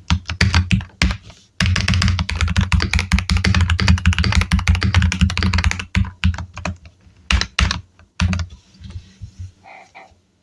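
Fast typing on a Keychron K10 Pro full-size mechanical keyboard: a dense run of keystroke clacks with a short pause about a second in, then slower, scattered keystrokes from about six seconds that trail off near the end.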